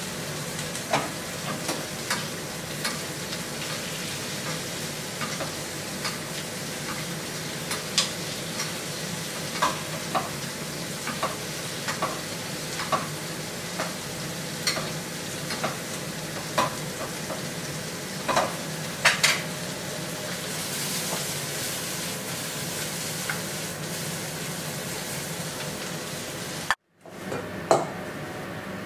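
Fillets sizzling in a stainless steel frying pan on a gas burner, a steady hiss with scattered light clinks and knocks of the pan and utensils. The sound cuts out for a moment near the end.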